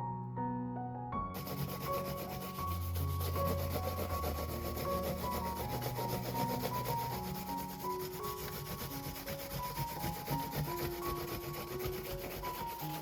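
Rapid, continuous scrubbing strokes start about a second in, over soft piano background music.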